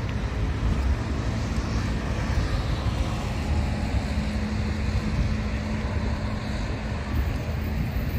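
Steady low rumble of city traffic, with a faint low hum showing through it for a few seconds in the middle.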